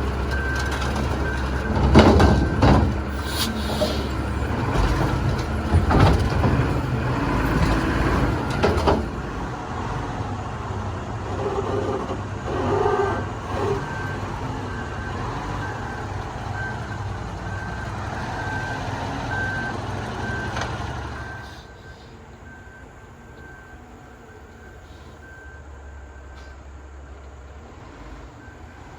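Heavy diesel vehicle running with its reversing alarm beeping steadily, with a few loud knocks in the first several seconds. About 21 seconds in the engine sound drops away, leaving a quieter hum while the beeper goes on faintly.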